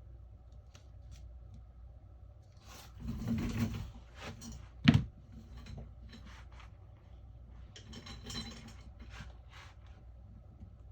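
Tool scraping and prying at the shattered glass of a Samsung Galaxy Note 10+: a stretch of scraping about three seconds in, one sharp click just before five seconds (the loudest sound), and more scraping near eight seconds, with small ticks in between.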